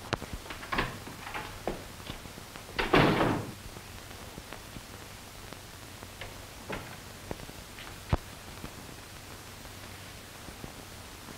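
A wooden door swings shut with a loud bang about three seconds in, followed by a few light knocks and clicks, one sharper knock near the end.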